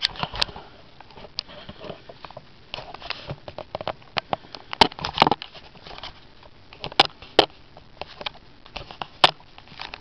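Scattered sharp clicks and short rustling noises over a low hiss, irregularly spaced, the loudest clicks about five seconds in and about nine seconds in.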